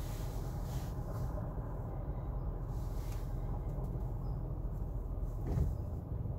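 A car idling at a standstill: a steady low rumble, with one short thump about five and a half seconds in.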